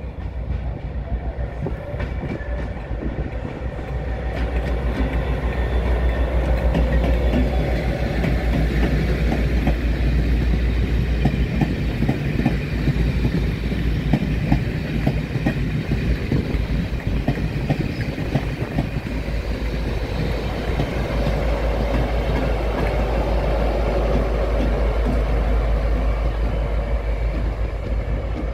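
Loco-hauled train with a Class 57 diesel locomotive passing slowly, a steady rumble with its wheels clicking over rail joints as the coaches and vans go by. Near the end the rear Class 57's diesel engine comes past and grows louder.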